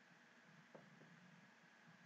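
Near silence: faint room hum, with two faint short taps about three quarters of a second and a second in as a marker touches the whiteboard.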